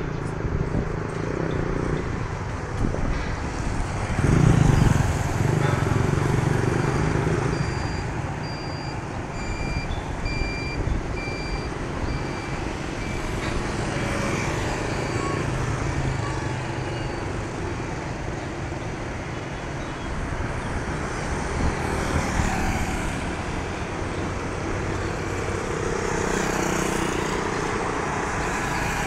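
City street traffic: vehicle engines running steadily, with one louder engine surging past about four seconds in. A faint series of short, evenly spaced high beeps runs through the middle.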